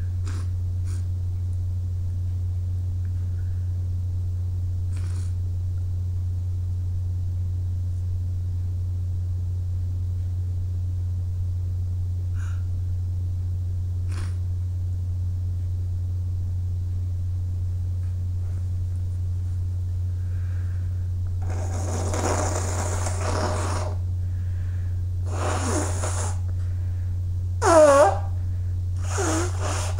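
A person blowing their nose in a few noisy blasts, starting about two-thirds of the way in, over a steady low hum. Near the end comes a louder, short burst that falls in pitch.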